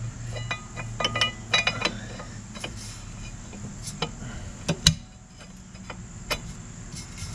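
Metal brake parts clicking and clinking as the rear brake caliper is worked on by hand, some clinks ringing briefly, with a couple of sharper knocks about four to five seconds in.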